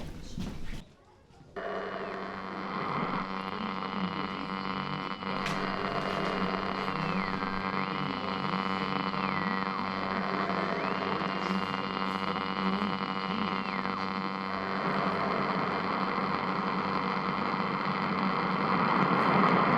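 Walkie-talkie giving off an odd electronic noise: a steady buzzing hum with a high whining tone that dips down and climbs back several times, and static hiss swelling near the end.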